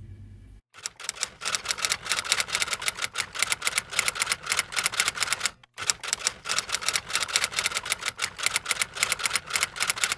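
Typewriter typing sound effect: rapid keystroke clicks many times a second, in two runs with a short break about halfway.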